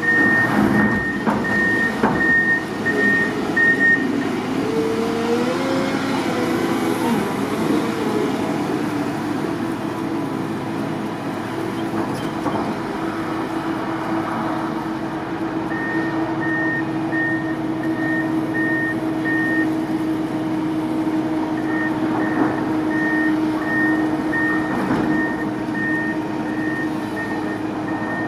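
Wheel loaders' diesel engines running while clearing snow, with a backup alarm beeping about twice a second near the start, again around the middle and through the last few seconds. The engine revs up and down a few seconds in, and a few knocks from the bucket come near the start.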